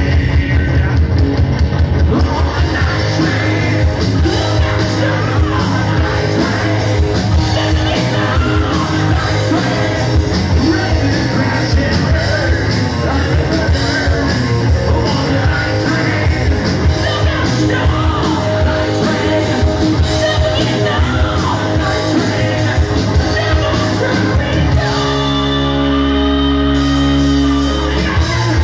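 Live rock band playing loud, with electric guitars, bass guitar and drums under a singer's shouted rock vocals. About 25 seconds in, the band holds one sustained chord for a couple of seconds before the full beat comes back.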